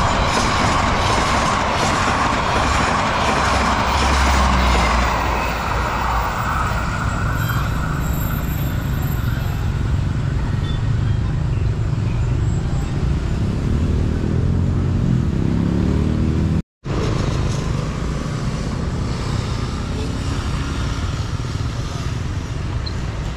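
A passing train's rumble at a railway level crossing fades over the first several seconds. Road traffic with car and motorcycle engines takes over. The sound drops out completely for a split second about two-thirds of the way in.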